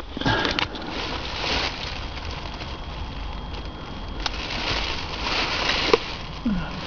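Rustling handling noise with a few sharp clicks, as of hands working loose parts and wiring connectors around a car's steering column.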